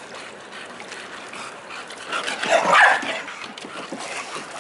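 Excited bulldog yapping and whining, with the loudest burst of yaps about two to three seconds in.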